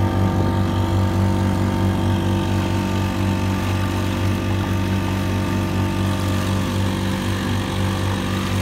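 Small boat engine running at a steady speed, pushing the boat along under way.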